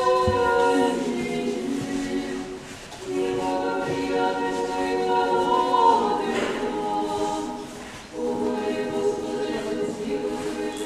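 Unaccompanied Orthodox church choir singing a slow liturgical chant in long held chords, phrase by phrase, with short breaks between phrases about three seconds in and again about eight seconds in.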